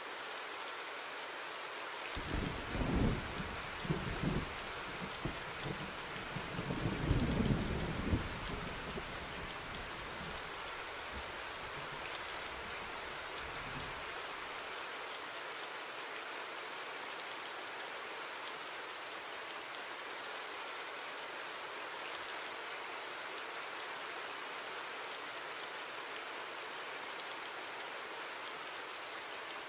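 Steady heavy rain with low rolls of thunder in the first half. The loudest rolls come about three and seven seconds in, and the thunder dies away by about fourteen seconds, leaving only the rain.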